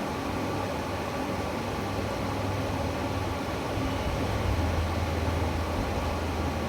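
Steady background hiss with a low hum underneath; the hum grows a little louder about four seconds in.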